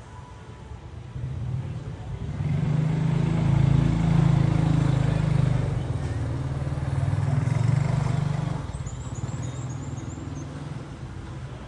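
A motor vehicle's engine passing by, building up, running loudest for several seconds and then fading away. A bird gives a short run of high chirps near the end.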